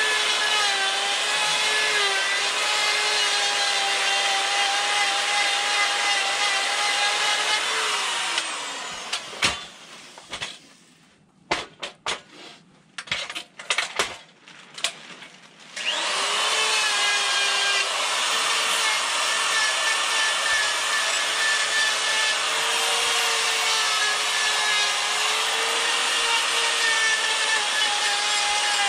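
Die grinder with a flame-shaped burr running steadily and grinding into wood, a high whine. About eight seconds in it is switched off and its pitch falls as it winds down. A few knocks follow, and about sixteen seconds in it spins back up and carries on grinding.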